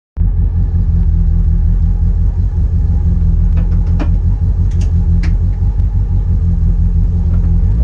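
Citroën Saxo N2 rally car's four-cylinder engine idling at a steady pitch, loud and heard from inside the stripped cabin. A few short, sharp clicks come through about halfway.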